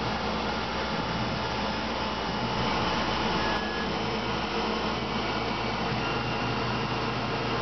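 Tormach PCNC 1100 CNC mill running steadily, its spindle driving a small drill through pilot holes in Ertalon plastic parts on a 4th-axis fixture while flood coolant sprays. The sound shifts slightly about three and a half seconds in.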